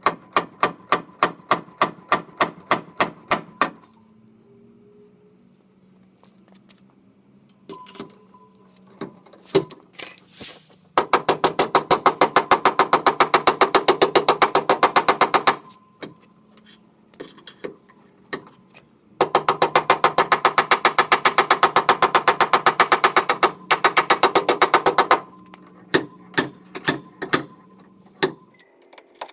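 Rapid runs of sharp, evenly spaced mechanical impacts from a power tool, coming in bursts of a few seconds with short pauses and scattered single clicks between.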